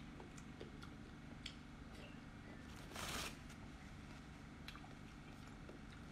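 Faint wet clicks of chewing and mouth sounds from eating spicy squid, over a low steady hum. About three seconds in there is a short rustling burst, a paper tissue wiped across the mouth.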